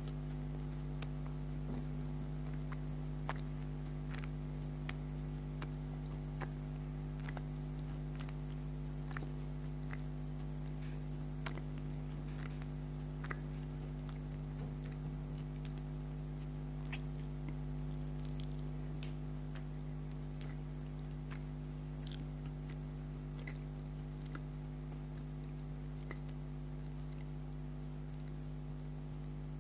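Close-miked chewing and wet mouth sounds of someone eating a yellow rasgulla, a soft syrup-soaked cheese ball: scattered small clicks and squishes over a steady low electrical hum.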